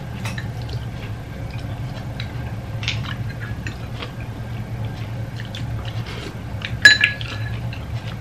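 Eating at a table: chewing and small clicks of fingers and food against plates, with one sharp ringing clink of a plate or utensil about seven seconds in, over a steady low hum.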